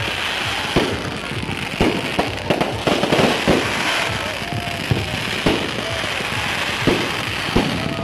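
Fireworks display: aerial shells bursting in irregular bangs, about one or two a second, over a continuous crackle and hiss of burning stars.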